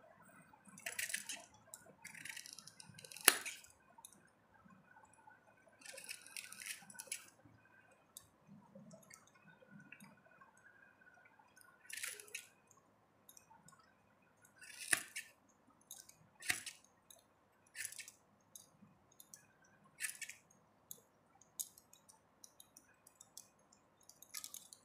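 Orange plier-style plastic hand vegetable cutter squeezed through a raw potato: a string of short, crisp cutting crunches spaced one to three seconds apart, with cut pieces dropping onto a steel plate. A sharper click about three seconds in is the loudest sound.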